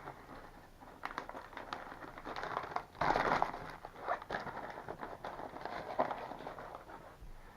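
Snack bag of freeze-dried apple slices crinkling and rustling as it is opened and handled, with a louder burst of crinkling about three seconds in.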